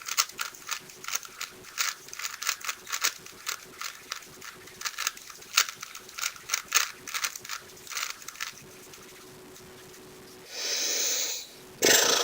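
A Rubik's cube being turned fast: a quick, irregular run of plastic clicks as the layers snap round, stopping after about eight seconds. Near the end there is a second-long hiss.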